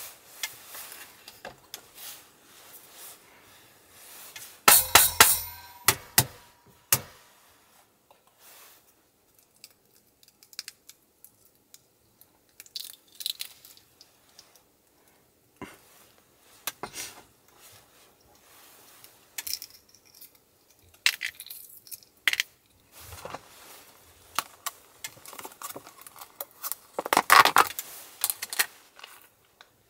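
Close-up food-handling sounds: chopsticks clicking against plastic food trays, a thin plastic takeaway pack crinkling, and a boiled egg's shell being cracked and peeled. Scattered clicks and rustles, with the loudest bursts about five seconds in and again near the end.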